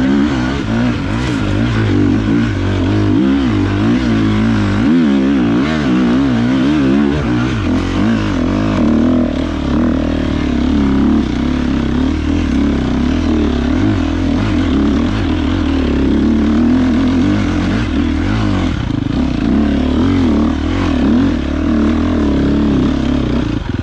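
Enduro motorcycle engine ridden hard over an off-road course, its pitch constantly rising and falling with the throttle and gear changes.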